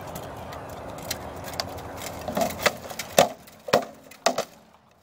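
Rattan swords striking shields in armoured sword-and-shield combat: sharp wooden knocks, a few faint ones in the first half, then a quick run of about five louder blows in the second half.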